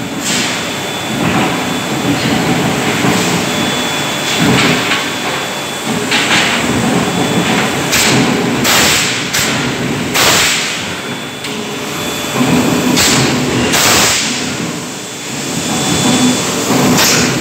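Hot forging shop at work: a large forging press shaping red-hot steel, with short, sharp bursts of noise every second or two at uneven intervals over a steady machinery din.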